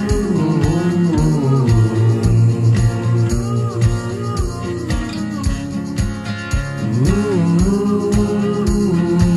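Indie folk band playing an instrumental passage: sustained melody lines that bend and glide in pitch over a steady beat of about two hits a second.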